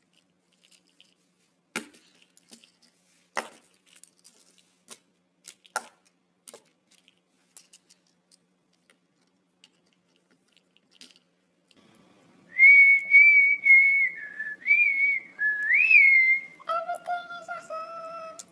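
Light plastic clicks and knocks as the pieces of a Lego Bionicle figure are handled. About twelve seconds in, whistling starts, a loud wavering tune. Near the end it gives way to a lower, fuller pitched tone.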